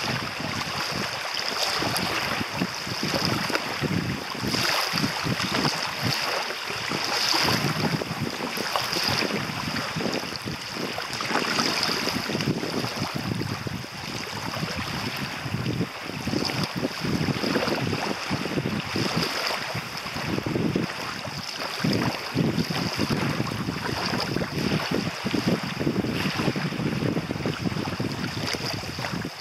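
Small lake waves lapping and washing onto a sandy shore, swelling every couple of seconds, with wind rumbling on the microphone.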